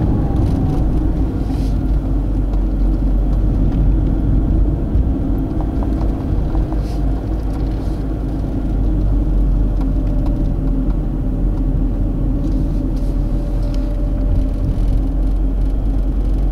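A car being driven, heard from on board: a steady, low engine and road rumble with a faint engine hum that shifts slightly in pitch.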